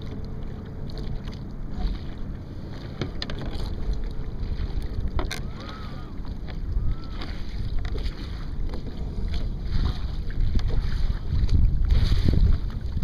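Wind buffeting the microphone of a camera mounted on a Sunfish sailboat under way, over the rush of lake water along the hull, with the gusts growing louder near the end. A single sharp click sounds about five seconds in.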